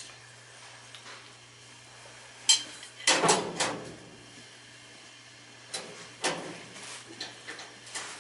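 Sharp metallic clanks and rattles, in a cluster about three seconds in and again from about six seconds, as metal parts and tools are handled during work on a gas furnace, over a steady low hum.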